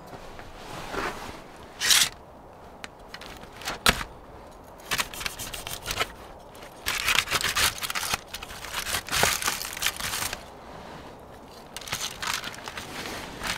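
Irregular bursts of rustling and scraping from things being handled, with a few sharp clicks.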